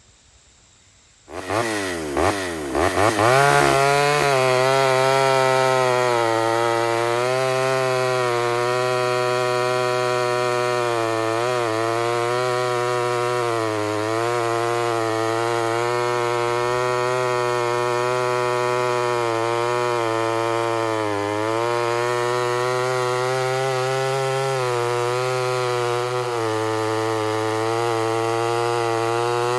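Ported Homelite Super XL Auto two-stroke chainsaw starting up about a second in and revving quickly to full throttle, then held wide open while cutting wood, its pitch dipping briefly now and then as the chain takes load.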